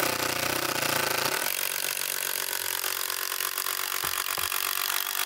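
Cordless drill running steadily under load as it drives a long screw into a wooden rail.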